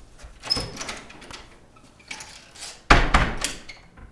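A door banging shut hard about three seconds in, the loudest sound, after a lighter knock and rattle about half a second in.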